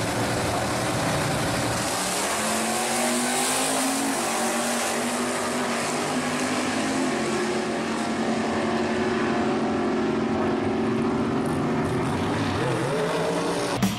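Two GM G-body drag cars at full throttle, launching off the start line and accelerating down the drag strip. The engine note climbs in long rising sweeps as they pull away.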